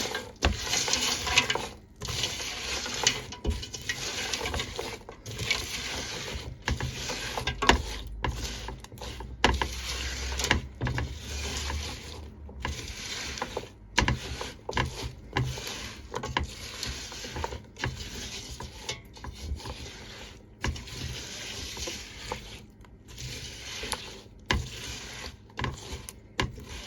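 A spoon stirring a sticky mix of pecans and puffed rice cereal into warm honey in a bowl: irregular scraping, rustling strokes with many brief pauses.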